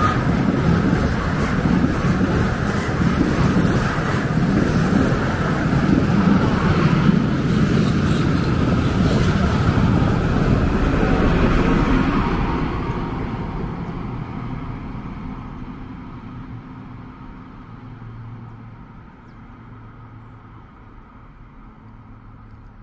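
Train passing on the track, a loud rolling rumble that dies away steadily from about halfway through as it recedes.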